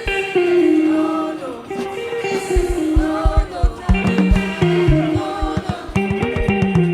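A gospel choir singing held chords with band accompaniment: bass notes and regular low drum beats under the voices.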